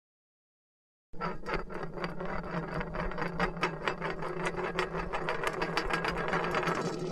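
A steady mechanical rattle, rapid clicks over a constant low hum, starting about a second in after silence.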